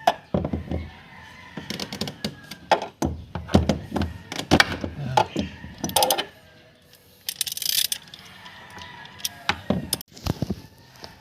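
Hard plastic clicks and knocks of a car's fuel pump module being pressed and tilted into the fuel tank opening, with a short hiss about seven seconds in.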